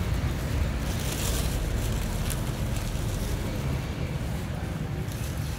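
Steady low outdoor rumble, with a couple of faint clicks about one and two seconds in.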